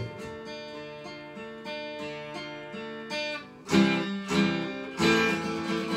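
Acoustic guitar played solo between sung lines: single notes picked softly and left ringing, then a few louder strummed chords from a little past halfway.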